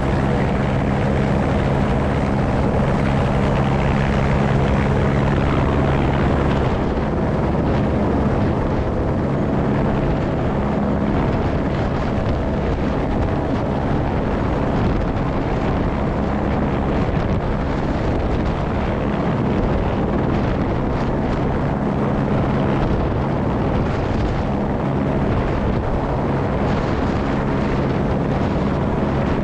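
Airbus AS350 B3 Esquilo helicopter running: a steady din of turbine and rotor, with a low hum that is strongest for the first seven seconds or so and then comes and goes.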